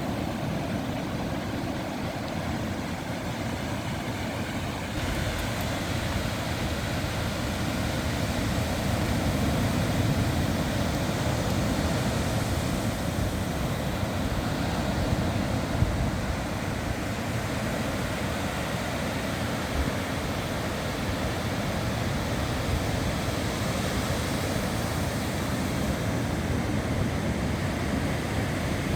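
Steady low rumble of wind on the microphone mixed with the wash of ocean surf.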